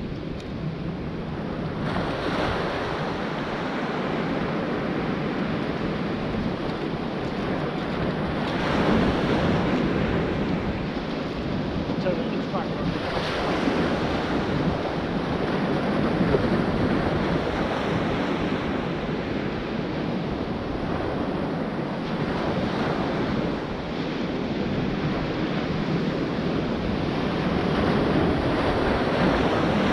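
Sea waves breaking on a beach, swelling and easing in surges every few seconds, with wind buffeting the microphone.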